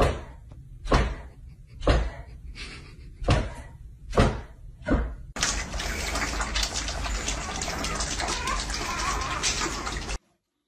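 A series of six thumps about a second apart, then, from about five seconds in, a dense run of lapping, chewing and clicking as several puppies feed from a metal bowl. It cuts off suddenly near the end.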